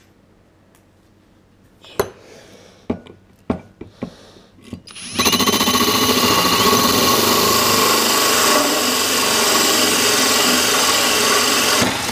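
A few sharp knocks as the tool is handled, then about five seconds in a cordless drill spins up and a Ridgid diamond hole saw with a carbide centering bit grinds steadily into stone floor tile, stopping near the end.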